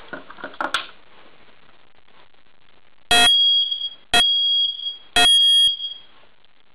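Photoelectric smoke detector's piezo horn sounding on its test button after a few small handling clicks: three loud, high-pitched beeps about a second apart, the code 3 (temporal-three) alarm pattern.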